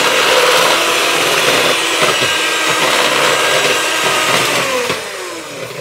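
Electric hand mixer running at high speed, beating icing sugar and egg white in a plastic bowl. Its whine falls in pitch and fades about five seconds in as it winds down.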